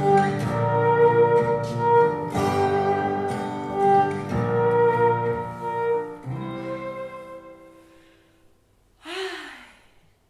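Instrumental background music that ends about six seconds in on a held chord, which fades away. A short voice sound comes near the end.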